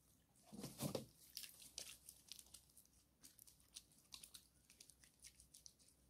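Faint crinkling and crackling of a plastic water container being handled and set down, with a louder bump just under a second in, then scattered small clicks.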